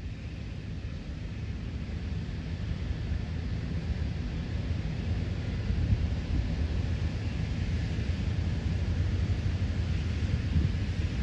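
A low outdoor rumble with no distinct tone, growing steadily louder. No siren is sounding.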